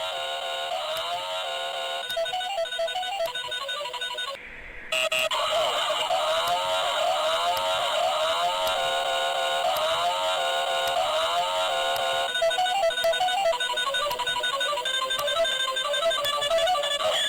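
Electronic sound effects from a toy infrared gun's small speaker: repeating beeping tone patterns, a brief break about four and a half seconds in, then warbling, sweeping laser-like tones.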